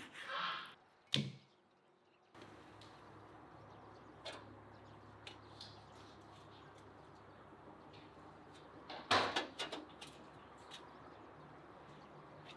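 A large knife cutting through raw chicken with a swish and one sharp knock on a wooden cutting board. Then steady outdoor hum with small clicks, and a loud burst of metal clatter about nine seconds in as a metal chimney pipe is fitted onto a samovar.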